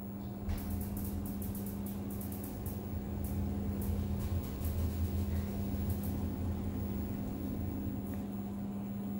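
All-In Liften hydraulic passenger lift running as the car travels down between floors, heard from inside the car: a steady hum with a low rumble under it. A quick run of faint clicks comes in the first few seconds, with another click about six seconds in.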